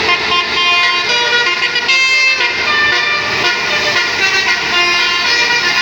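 Multi-tone basuri telolet bus horn playing a melody, its notes stepping to new pitches every fraction of a second.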